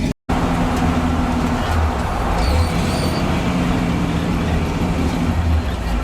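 1966 Chevy truck's 283 small-block V8 running steadily, with a deep, even engine note. The sound cuts out briefly just at the start.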